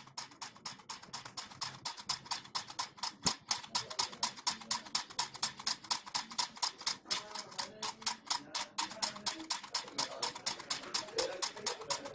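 Homemade solenoid engine running, a fast even clicking several times a second as its coil pulls the plunger rod and drives the wire crankshaft round.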